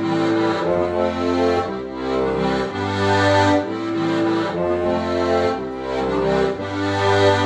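Accordion playing a tune: a melody over held chords, with bass notes that change every second or so.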